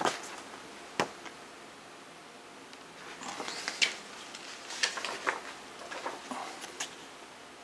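CD packaging and a paper booklet being handled: a sharp click about a second in, then scattered soft clicks and rustles.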